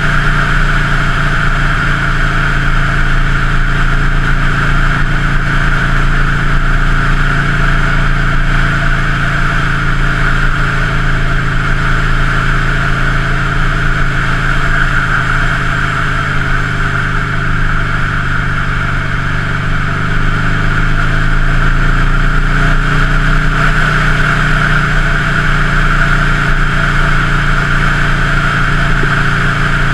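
A 2003 Buell Lightning XB9's air-cooled V-twin running under way at a steady road speed. It eases off briefly past the middle and picks up again.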